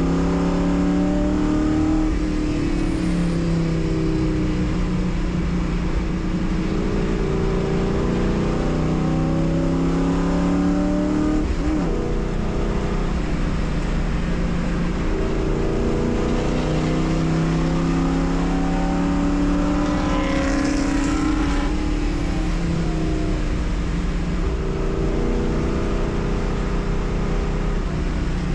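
Race car engine under hard acceleration, its pitch climbing through each gear and dropping back at each shift or lift, repeating every few seconds. A brief hiss rises over it about twenty seconds in.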